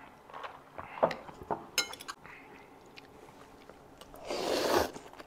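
Spaghetti slurped up from chopsticks, one long slurp of under a second about four seconds in. Before it, a few light clinks and taps of glasses and tableware.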